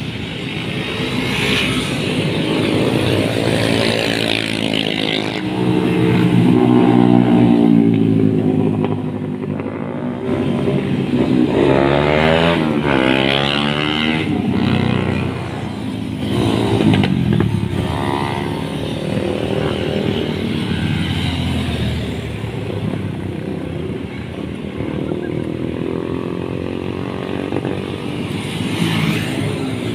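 Several motorcycles riding past one after another, their engines revving and rising and falling in pitch as they come and go, often overlapping.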